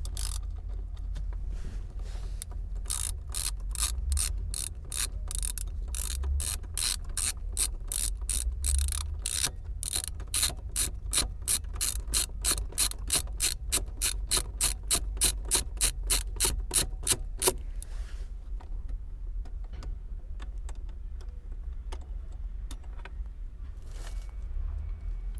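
Socket ratchet with a T30 Torx bit clicking steadily, about three clicks a second, as it backs out a screw holding a steering-wheel airbag. The clicks grow louder partway through and stop a little over two-thirds of the way in.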